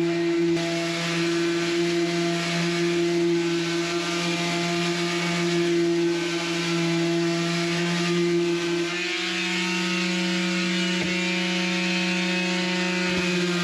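Electric sander running steadily with a vacuum drawing dust through the hose attached to it, a steady hum over a hiss; the hum steps slightly higher about nine seconds in.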